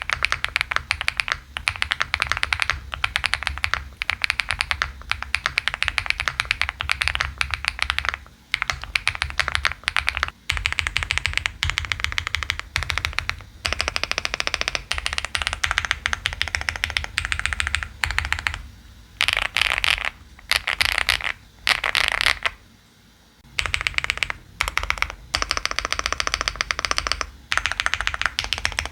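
Fast typing on a 75% mechanical keyboard with double-shot PBT keycaps: a dense run of key clacks, broken by short pauses and a roughly one-second lull a little after twenty seconds in.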